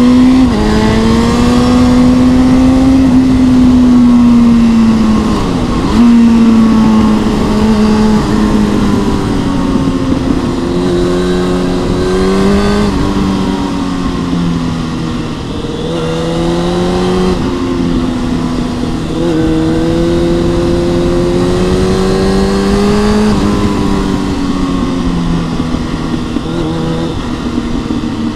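2003 Honda CB600F Hornet's inline-four with a Mivv X-Cone aftermarket exhaust, pulling hard through the gears. The pitch climbs, drops sharply at each gear change and climbs again, several times over, with wind noise underneath.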